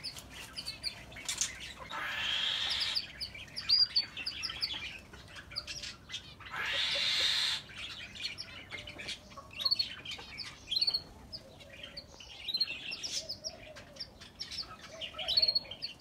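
A flock of small aviary birds chirping and twittering, with many short high notes overlapping. Two rushes of noise, each about a second long, come about two and seven seconds in.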